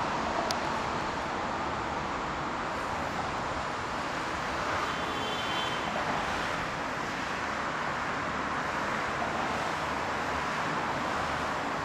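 Steady city traffic noise, an even rushing hiss, with a faint short high chirp about five seconds in.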